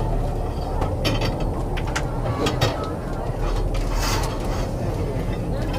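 Steady low machinery rumble in a surfaced tourist submarine's cabin, with scattered clicks and knocks and faint voices.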